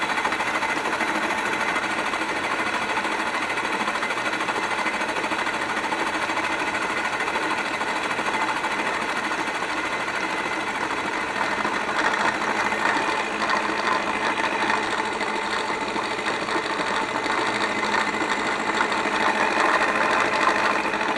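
Milling machine spindle running at about 1000 RPM while its cutter takes a power-fed pass across a manifold's mating face: a steady, dense mechanical chatter that grows a little louder and harsher about halfway through.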